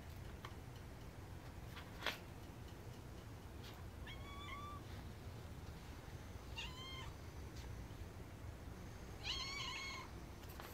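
Cat mewing three times, short high calls a couple of seconds apart, the last one longest and loudest. A single sharp click about two seconds in, over a steady low hum.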